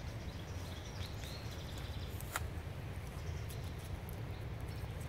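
Outdoor ambience: a steady low rumble with faint bird chirps, and one sharp click about two and a half seconds in.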